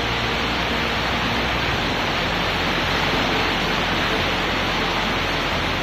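Heavy rain pouring down in a strong wind: a dense, steady hiss with no breaks.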